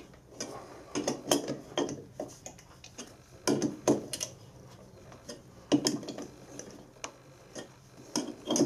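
Cushman four-jaw lathe chuck being adjusted by hand: short clusters of metallic clicks and clunks every second or two as the jaws are nipped up with the chuck key and the chuck is turned.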